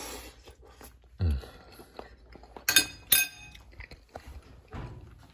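A metal fork clinks twice against a ceramic plate, a fraction of a second apart, each strike ringing briefly.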